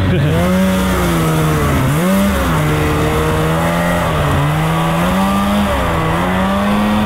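Turbocharged Lynx snowmobile engine running hard under throttle in deep powder. Its pitch dips and climbs back several times as the rider lets off and gets back on the throttle through turns.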